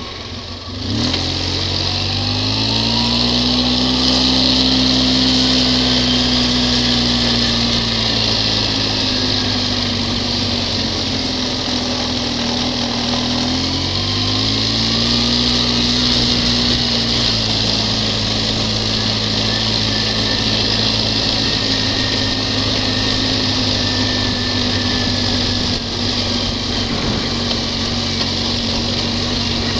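ATV engine picking up revs about a second in and then running steadily under throttle, with a brief drop and rise in revs about halfway through.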